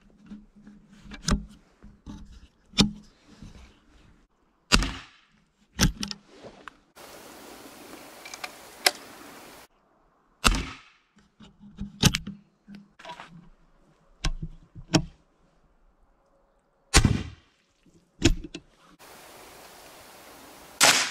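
A .300 Rook Martini-type falling-block rook rifle by W. Wallas of Wigton firing several sharp shots spread through the clip, each with a short ringing tail. Quieter metallic clicks and knocks come between the shots as the falling-block action is worked to reload.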